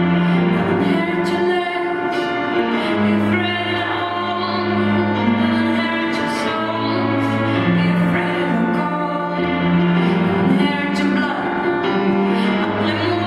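Music with held instrumental notes over a steady bass line, and a woman singing over them.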